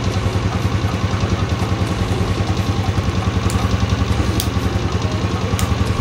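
Honda motorcycle's single-cylinder four-stroke engine idling at low speed, a steady even beat.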